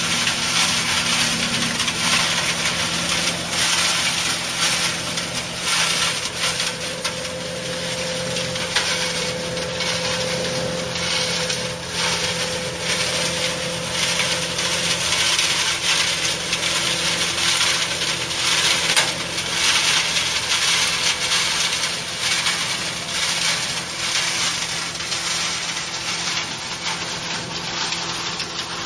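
Tractor-driven fodder blower running steadily: a constant rushing hiss over a low machine hum, with irregular crackling from chopped grass passing through it.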